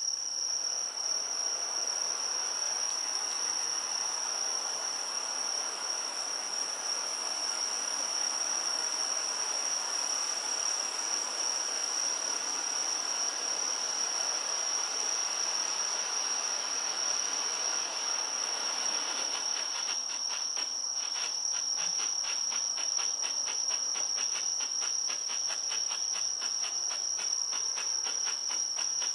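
A 30 mm Bengal ground flare burning with a steady hiss, changing about twenty seconds in to a silver strobe that crackles in quick pops several times a second. Insects chirr on one high, unbroken pitch throughout, the loudest sound.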